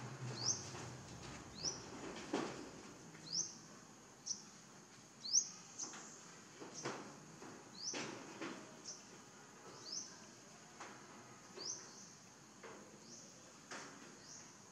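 A bird calling with short rising chirps, repeated about once a second, over a steady high-pitched insect drone.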